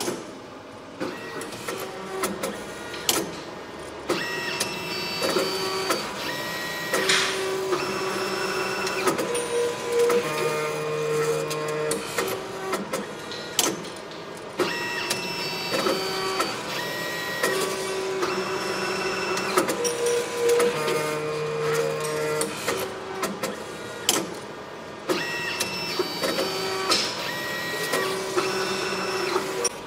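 An automated machine running its motors through a repeating cycle. They whine at several steady pitches that change every second or so, with clicks in between, and the sequence repeats about every ten seconds.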